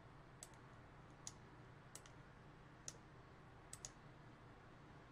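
Faint computer mouse clicks: four single clicks about a second apart, then a quick double click near the end, over near-silent room tone.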